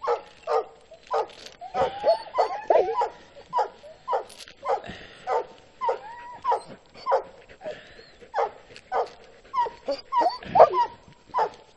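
Sled dogs in harness barking and yipping over and over, about two calls a second, some calls sliding into whines, while the team is held stopped on the trail.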